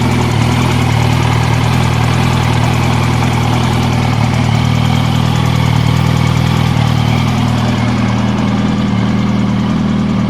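2006 Yamaha YZF-R1 inline-four engine idling steadily, with a fine rapid ticking from up towards the cylinder head.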